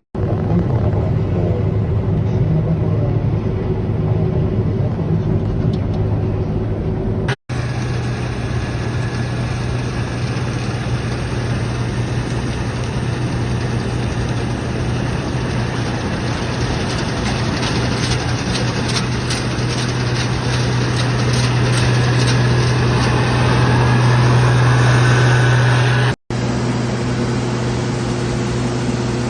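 A vehicle engine running steadily, with a strong low hum. The sound is broken by two abrupt cuts, and in the longest stretch the engine grows louder toward its end.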